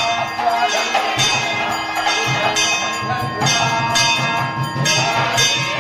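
Temple bells ringing in a quick, repeating rhythm over steady ringing tones and a low, pulsing beat.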